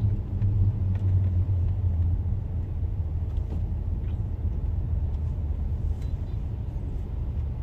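Steady low rumble of diesel dump truck engines and slow road traffic, a deep drone that eases slightly after the first few seconds.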